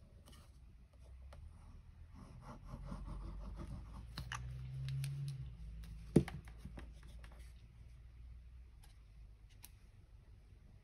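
Paper and cardstock being handled for gluing: soft rustling and crinkling with scattered small ticks, and one sharp click about six seconds in.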